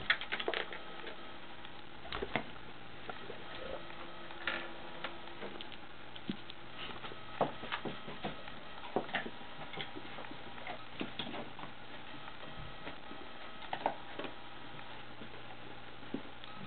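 Golden retriever moving about, its metal collar tags clicking in scattered light ticks, sometimes two or three together, over a steady low hum.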